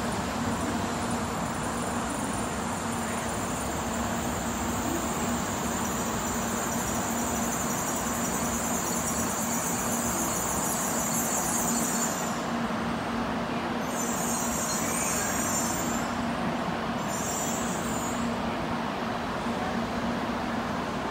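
N700 series (small-a) Shinkansen train running slowly along the platform and braking to a stop. A steady rumble carries a low hum, with a high-pitched squeal that stops about halfway through and returns twice briefly.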